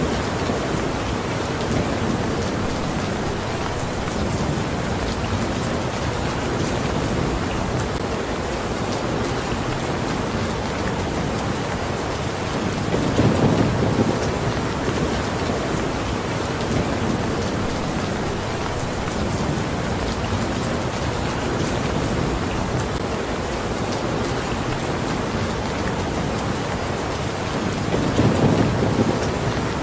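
Steady rain falling, an even hiss, with two brief low rumbles, one about thirteen seconds in and one near the end.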